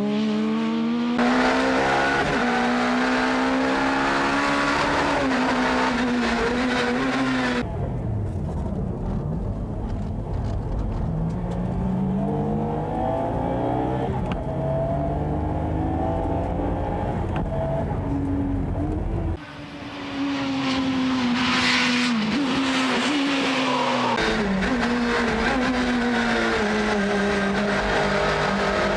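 Two race cars driven flat out on a circuit, their engines rising and falling in pitch through gear changes and corners, with brief tyre squeal. The cars are a tuned Nissan Skyline GT-R R32 with its twin-turbo straight-six and a front-wheel-drive JTCC Toyota Sprinter Marino. The sound changes abruptly several times. From about a quarter of the way in to two-thirds of the way in, the engine sound is dull and heavy in the bass, as heard from inside a cabin.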